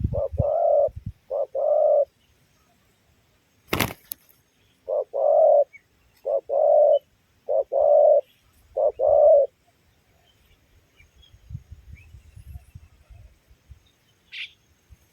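Spotted dove (tekukur) cooing: six low coos, two then four more after a pause. A single sharp knock sounds about four seconds in.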